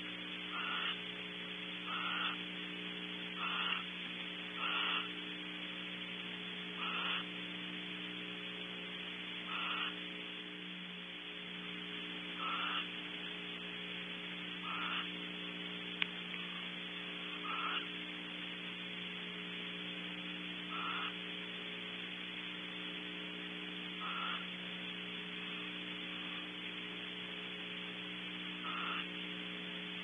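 Barn owl giving short, raspy hissing snore calls, one every one to three seconds, the food-begging call of this species, over a steady electrical hum from the nest camera. A single sharp click comes about halfway through.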